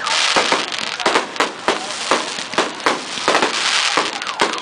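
Fireworks display: a rapid run of sharp bangs, two or three a second, with a crackling hiss strongest in the first second.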